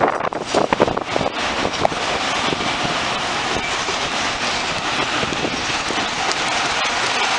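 Metra bilevel commuter train rolling past. Its wheels click sharply over rail joints and switches for about the first second, then settle into a steady rushing noise as the cars roll by.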